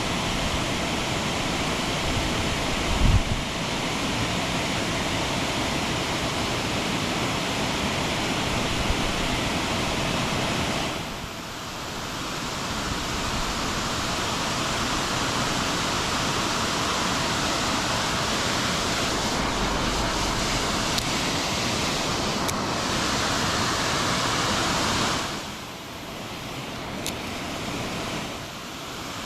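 Rushing creek water running through rapids, a steady loud hiss. It dips in level about a third of the way in and again near the end, and there is a brief low thump a few seconds in.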